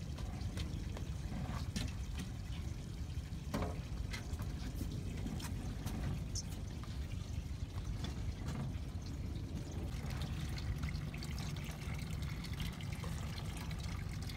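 Water trickling and dripping, with a few short splashes and knocks, as a largemouth bass and the landing net are lifted out of the lake, over a steady low rumble.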